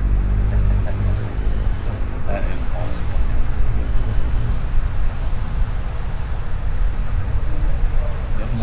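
A steady high-pitched insect drone over a continuous low rumble.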